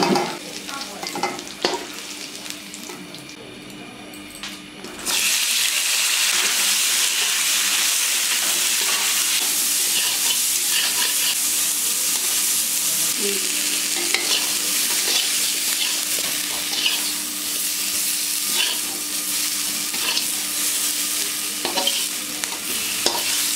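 Hot oil sizzling in a pan on the fire, with occasional clinks and scrapes of stirring. About five seconds in the sizzle suddenly gets much louder and then runs on steadily.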